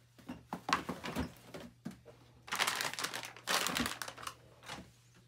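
Plastic rustling and crinkling with light knocks, as things are handled in a cabinet. There are a few knocks at first, then two louder bursts of crinkling in the middle and a short one near the end.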